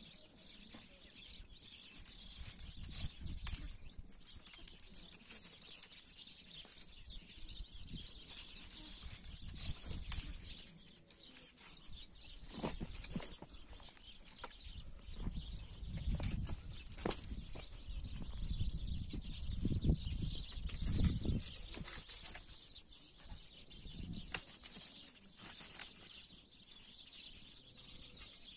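Small birds chirping over a steady high hiss, broken by bursts of low rustling and a few sharp knocks. The knocks come a few seconds in and about ten seconds in, and the rustling is heaviest through the second half.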